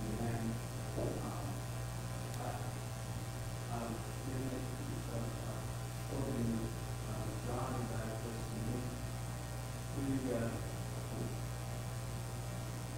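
Steady electrical mains hum, with faint, distant off-microphone speech coming and going over it.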